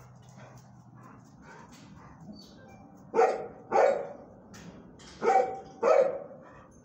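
Dog barking: four loud barks in two pairs from about three seconds in, after a run of fainter yips and barks.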